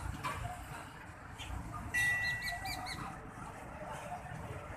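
A bird calling: a steady high whistle about two seconds in, then a quick run of four short rising-and-falling notes.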